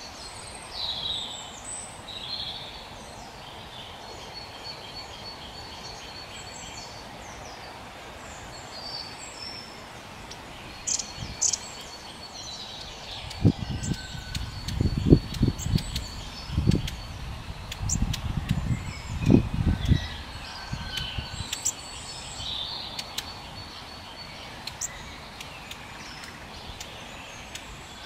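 Small woodland birds calling and singing, with many short high chirps and trills throughout. In the middle comes a series of low thumps over several seconds, louder than the birdsong.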